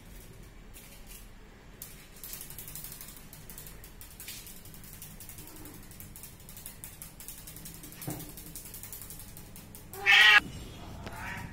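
A cat meowing: one short loud meow near the end, followed by a second, fainter one. Before it, only faint clicking and rustling.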